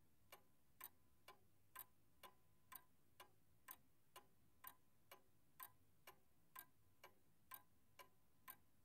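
Faint clock ticking, steady and even at about two ticks a second, counting down while the choice waits.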